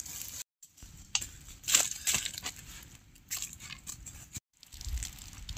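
Dry leaves crunching and rustling in short, irregular bursts. A low rumble comes in near the end.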